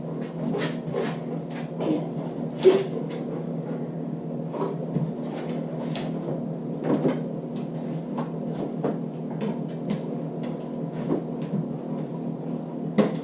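A refrigerator door being tugged open by a dog pulling on a rope-and-ball handle, with scattered knocks and clatters over a steady low hum; the sharpest knock comes about three seconds in.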